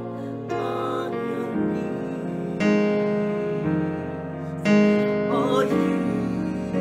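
Slow, tender song: piano chords struck every second or so under three voices singing together, one voice bending through a melisma near the end.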